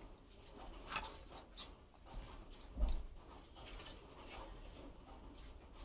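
Quiet eating and food-handling sounds: soft mouth noises and rustling with a few light clicks and taps, the loudest a tap with a dull thump about three seconds in.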